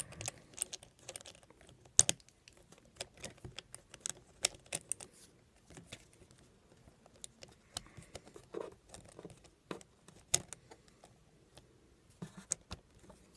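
Irregular light clicks and taps of small metal parts and a screwdriver being handled while a ring terminal and bolt are fitted to a car battery terminal, with a couple of sharper knocks.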